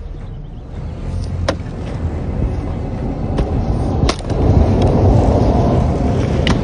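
Fiskars X27 splitting axe striking California black oak rounds: sharp wooden cracks, a lighter one about a second and a half in, the loudest at about four seconds, and another near the end. Underneath runs a steady low rumble that swells after the main strike.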